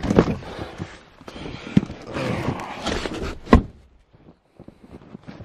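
Footsteps crunching in snow, with rustling as a cardboard box is carried, and a single loud thump about three and a half seconds in.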